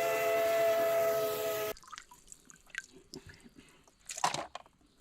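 A steady train-style whistle of several held notes that cuts off suddenly after about two seconds, then faint drips and clicks of water with one short splash near the end, typical of toys being washed.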